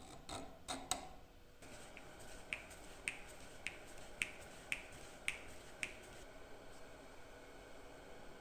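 Sharp light clicks or taps: a few irregular ones at first, then a steady run of about eight, roughly two a second, that stops about six seconds in.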